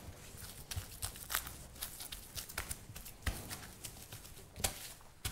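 Hands patting and pressing a slab of puff pastry dough wrapped in cling film on a stainless steel worktop: irregular soft taps, a few sharper ones, with crinkling of the plastic film.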